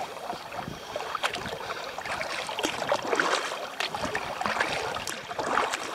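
Kayak paddle strokes, the blades dipping and splashing in the lake water, as a Wilderness Systems Aspire 105 recreational kayak is paddled along. Irregular swishes and splashes.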